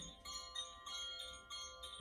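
Koshi chime played softly, its clapper striking the tuned metal rods inside the bamboo tube in quick, irregular strokes, several a second, each note ringing on into the next.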